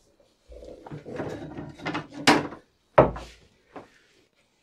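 A sheet of cardboard being handled and pushed into place against the hull: rustling and scraping, then a sharp knock a little after two seconds and a dull thud about a second later.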